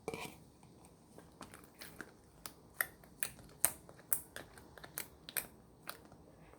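Slime being worked by hand, giving a run of irregular sharp pops and clicks, about a dozen, thickest in the middle.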